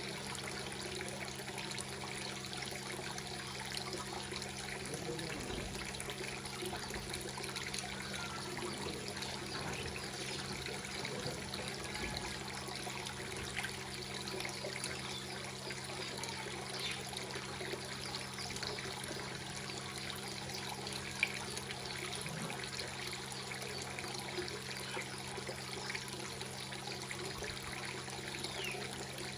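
Water trickling and splashing steadily into a fish pond, with a steady low hum underneath and one short click about two-thirds of the way through.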